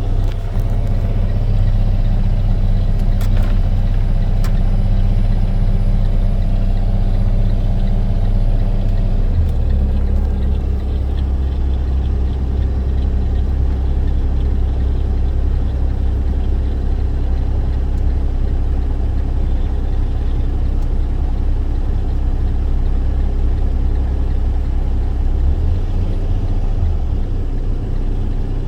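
Box truck driving: a steady low engine and road drone that shifts to a new pitch about nine seconds in and changes again near the end.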